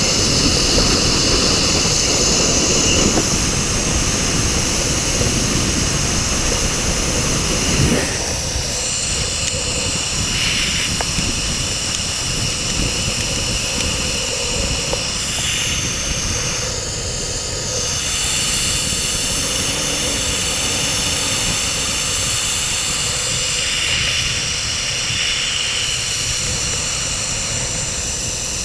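Zip-line trolley running fast along a steel cable, its wheels giving a steady high whine over loud wind rushing across the microphone. The low rushing eases about eight seconds in.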